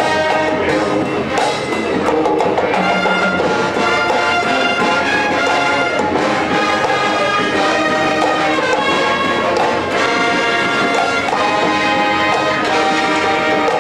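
College marching band playing a tune, with trumpets and trombones carrying it, loud and steady throughout.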